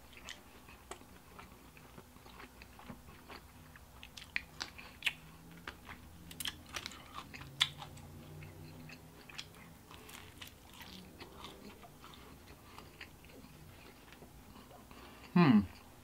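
Close-miked chewing and crunching of crisp pizza crust, in irregular crackly bites that come thickest through the middle. Near the end, one brief, loud sound drops steeply in pitch.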